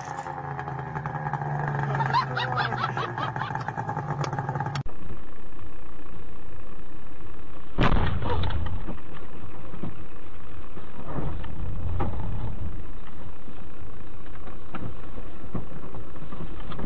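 A quad bike's engine running, with a wavering pitch, cut off about five seconds in. Then a steady rumbling noise with one sharp knock about three seconds later and a few fainter knocks after it.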